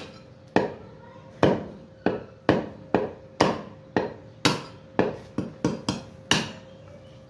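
Heavy meat cleaver chopping through a mutton foreleg, bone and meat, onto a round wooden log block: about thirteen sharp chops at roughly two a second, a few coming in quick succession near the end, then stopping about a second before the end.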